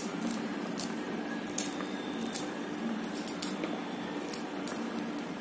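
Pomegranate peel and pith being pulled apart by hand, wet squishy tearing with scattered small clicks at irregular moments, over a faint steady low hum.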